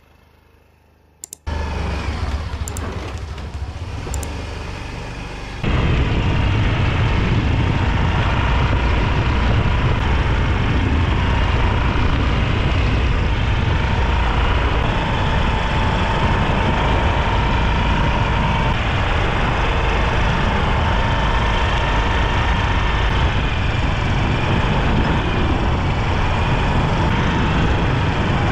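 Yamaha Grand Filano scooter being ridden on the road: steady engine and road noise, heavy in the low end, with a thin steady whine over it. It starts quietly and grows much louder about six seconds in.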